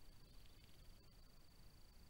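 Near silence: the recording's own noise, a faint steady high tone over a low hiss.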